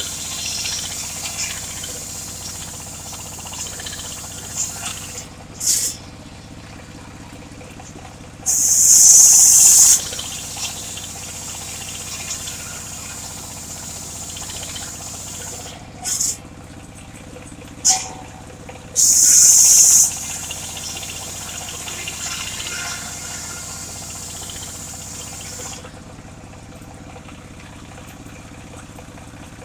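Engine-driven circular saw running steadily, with loud high hissing bursts of a second or so, twice, as the blade cuts through mahogany, plus a few shorter sharp bursts between.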